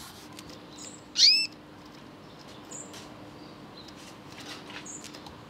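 Caged songbird calling: one loud upward-sweeping whistle about a second in, with a few short high chips before and after, over a faint steady hum.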